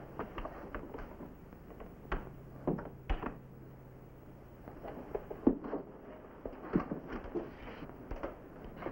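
Footsteps and door sounds in a small room: a string of short knocks and clicks, the loudest about five and a half seconds in. A faint low hum runs under the first few seconds.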